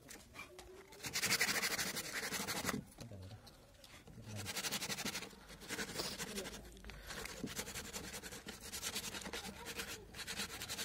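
Hand sanding of a carved wooden bed panel with a piece of sandpaper: quick back-and-forth rubbing strokes in three spells with short pauses between them, the longest in the second half.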